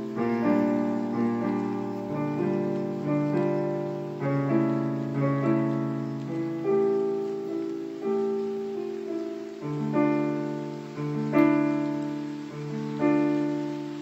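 Solo piano music played on a digital piano: chords and melody notes struck one after another, each ringing on and fading before the next, about one or two a second.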